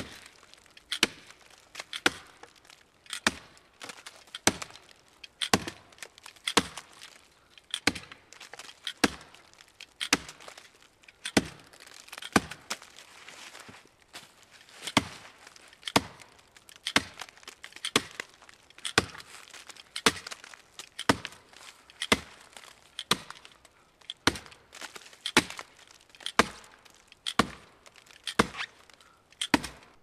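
Hatchet blade of a Zippo 4-in-1 Woodsman chopping into a standing tree trunk about four inches across, a steady run of sharp chops about one a second as it cuts a notch around the trunk.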